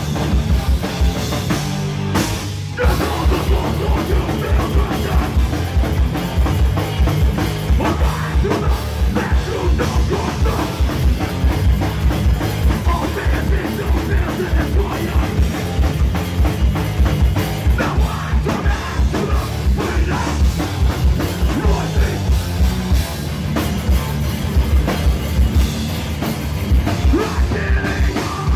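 A hardcore band playing live and loud: fast pounding drums, distorted guitar and bass, with a vocalist shouting into a microphone. The music stops for a split second a little over two seconds in, then crashes back in.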